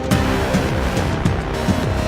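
Background music with a steady electronic beat and deep, pitch-dropping kick drum hits.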